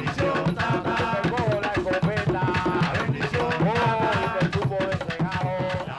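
Afro-Cuban hand drums, congas, playing a dense rhythm under voices singing a melody.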